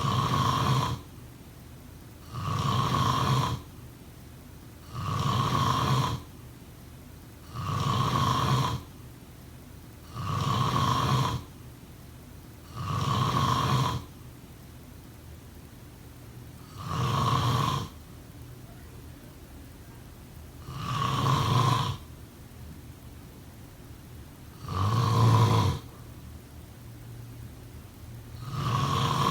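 Snoring in a steady rhythm: about ten snores, each roughly a second long, one every two and a half to four seconds, the gaps growing a little longer toward the end.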